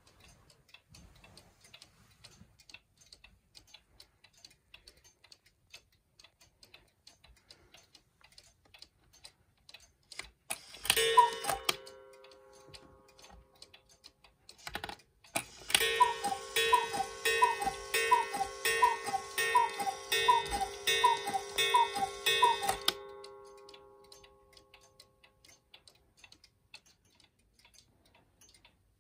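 German cuckoo clock ticking steadily. A single two-note cuckoo call sounds about eleven seconds in. Once the minute hand has been turned by hand, a run of about ten two-note cuckoo calls follows over roughly seven seconds, each note a breathy bellows whistle.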